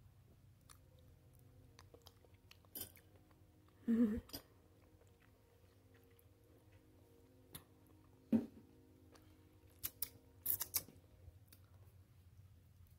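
A person chewing a mouthful of noodles close to the microphone, with a few short sharp mouth clicks, the loudest about four and eight seconds in and a cluster near the end, over a faint steady hum.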